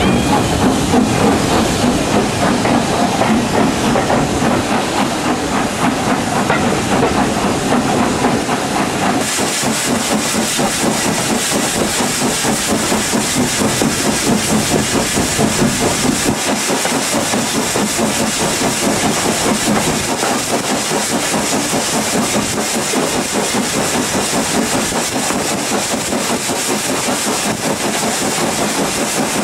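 Steam locomotive hauling a train, heard close behind the engine: a steady hiss of escaping steam over the rhythmic running noise of the wheels on the rails. About nine seconds in the hiss turns brighter and stays so.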